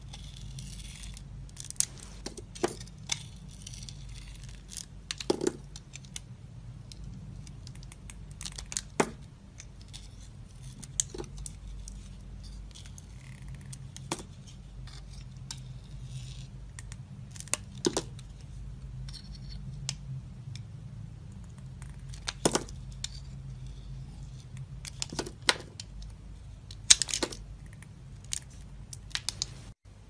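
Snap-off utility knife blade cutting into bars of soap: irregular crisp cracks and scrapes, every second or two, as the blade slices through and pieces break away, over a steady low hum.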